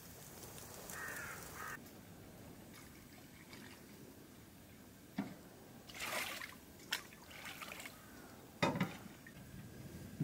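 Faint trickling water with a few sharp knocks and clatters, the loudest a little before the end.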